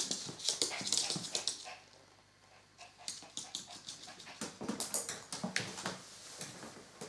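A small dog's claws ticking and scrabbling on a wooden floor as it moves about, in quick irregular clicks. A person's footsteps come in near the end.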